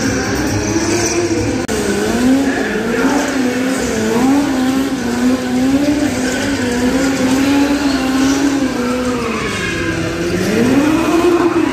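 Stunt-show vehicle engine revving up and down in quick waves around a steady pitch, dipping and then climbing again near the end.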